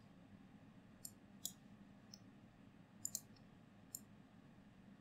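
A few faint, sharp clicks, about five, spaced irregularly over quiet room tone: handling of the computer's pointing device as the notes page is scrolled.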